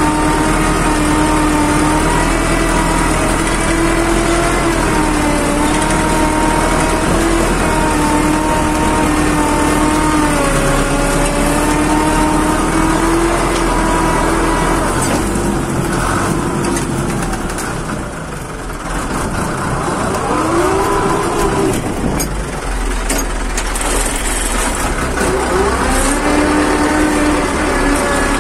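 Fiat 640 tractor's four-cylinder diesel engine running steadily under load while pulling a mounted plough. About two-thirds of the way in it eases off, then revs up and down as the tractor turns.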